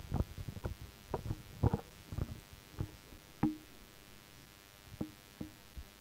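Handling noise on a handheld microphone: soft, irregular thumps and rubs as it is held and shifted in the hand. They come thickly over the first couple of seconds, then thin out to a few isolated knocks.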